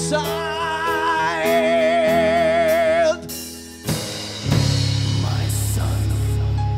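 Metal band playing live: a singer holds one long note with wide vibrato over sustained guitar chords and drums. The band stops together about three seconds in, and after a short lull a quieter passage of steady low held notes begins.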